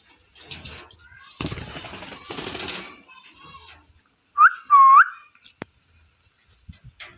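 Parrot giving two short, loud calls in quick succession just after four seconds in, each a bending whistle-like squawk. Earlier, a stretch of rustling noise.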